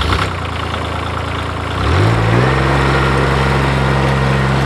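Grasshopper 721D zero-turn mower's Kubota three-cylinder diesel running just after starting, then revved up about two seconds in to a higher, steady speed.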